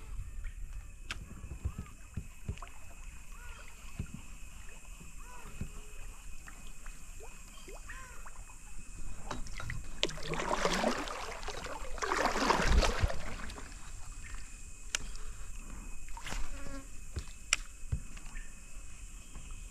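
Kayak on a river: water splashing and light knocks, with two louder surges of rushing, splashing water about halfway through, over a steady high insect drone.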